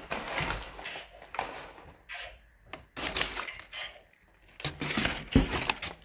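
Crumpled brown kraft packing paper rustling and crinkling as it is handled and pulled out of a cardboard box, in irregular bursts, with a heavier thump about five seconds in.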